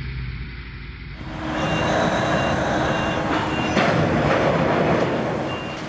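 Huge mining dump truck's reversing alarm beeping in a steady repeated pattern over the loud running noise of the truck, starting about a second in.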